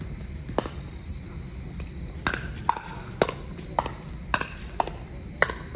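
Pickleball rally: paddles hitting the plastic ball with sharp pocks, one about half a second in, then a quick string about every half second from about two seconds in.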